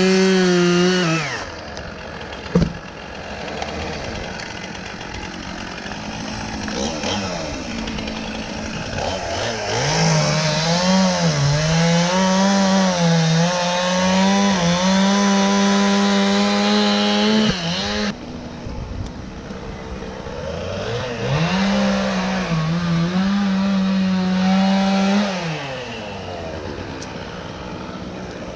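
Two-stroke chainsaw cutting wood: the engine runs at full throttle with its pitch wavering and dipping under load during three stretches of cutting, and drops back to a lower idle between them and near the end. A single sharp click comes about two and a half seconds in.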